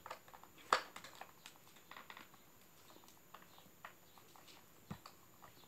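Small screwdriver working the screw on a toy remote-control car's plastic battery cover: faint, scattered light clicks and taps, the sharpest about three-quarters of a second in.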